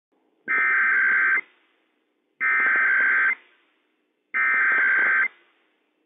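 Emergency Alert System SAME header on NOAA Weather Radio: three identical bursts of two-tone digital data, each about a second long with a second's gap between them. It is the coded header that opens a Required Weekly Test.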